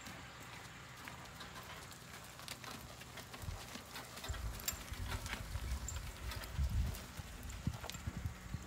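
A harnessed horse walking on dirt, pulling a two-wheeled cart: dull hoofbeats with scattered light clicks and rattles, loudest a few seconds in as it passes close.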